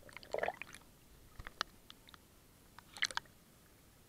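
Small splashes and drips of lake water and rain against a camera held at the water's surface: scattered sharp ticks, with short splashy clusters near the start and again about three seconds in.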